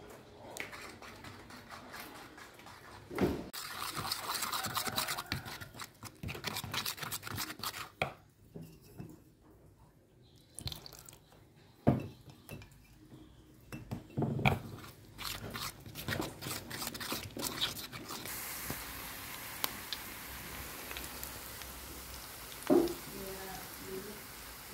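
Kitchen cooking sounds: a fork clinking and scraping in a bowl while flour and egg are mixed into dough, with scattered taps and knocks. About two-thirds of the way through, a steady sizzle starts as dough pieces fry in hot oil in a pan, with one sharp knock near the end.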